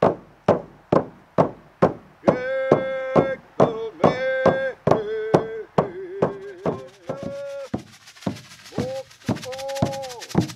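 Hand drums with painted hide heads beaten together in a steady beat, about two strikes a second, in a Northwest Coast First Nations drum song. Men's voices join about two seconds in, singing a chant in long held notes. A high hiss builds near the end.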